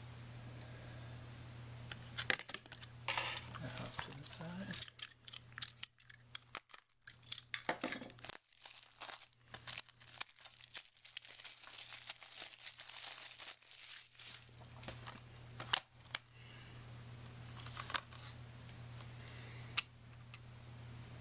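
Clear plastic shrink-wrap being torn and peeled off a Blu-ray case, with dense crinkling and crackling from about two seconds in until about fourteen seconds in. After that comes lighter handling with a few sharp clicks, over a steady low hum.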